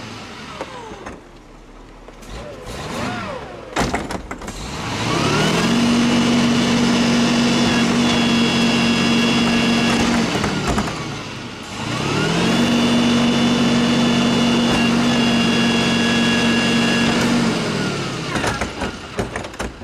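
Rear-loading garbage truck's engine revving up twice to drive the hydraulics of the cart tipper. Each time the pitch rises, holds steady for about five seconds, then falls back, while a wheeled trash cart is lifted and dumped into the hopper. A few clanks of the cart and tipper come about four seconds in.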